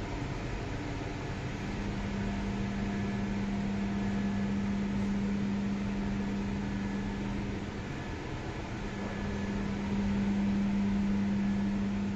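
A steady low hum over an even hiss of room noise, the hum growing stronger about ten seconds in.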